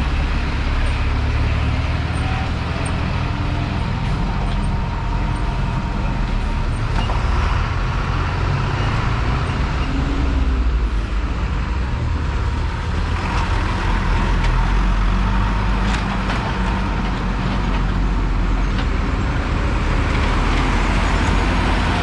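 Diesel engines of heavy lorries running with a steady low rumble as trucks move slowly past at close range.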